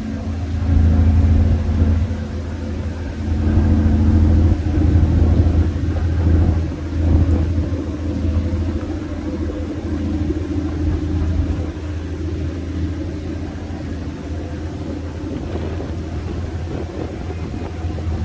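River ferry's engine droning, a deep steady hum with a few swells in loudness in the first half.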